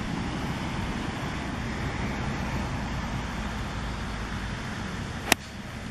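Steady low outdoor background noise, then a single sharp click about five seconds in: a 54-degree wedge striking a golf ball off the tee.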